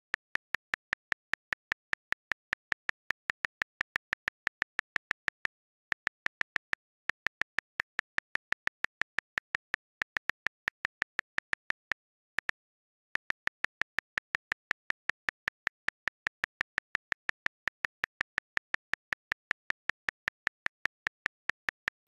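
A calculator app's button tapped over and over, giving a short, sharp click about five times a second. There are a few brief pauses, the longest about halfway through, broken by a single click.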